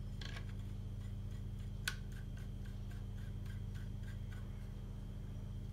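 Plastic pan handle being twisted into a Weifeng WT-3560 tripod head: a sharp click, then a run of light ticks about four a second, over a steady low hum.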